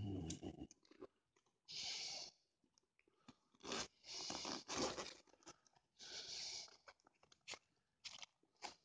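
Zipper on a small Roswheel bike saddle bag being pulled open in several short bursts, mixed with the crinkle of the plastic packing inside as the bag is handled.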